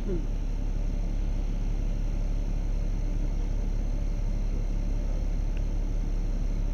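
LiAZ bus engine running at a steady, even, low pitch.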